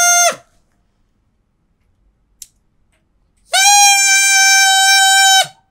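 Drinking-straw whistle blown in two steady reedy notes: one ends about half a second in, and another, slightly higher, lasts about two seconds from three and a half seconds in. The straw is being cut shorter between blows, which raises the pitch. A short faint click comes between the notes.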